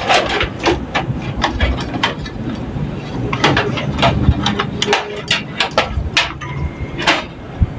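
Irregular clicks and knocks of a motherboard and its hardware being handled and fitted into a metal PC case, coming in small clusters with the loudest knock near the end.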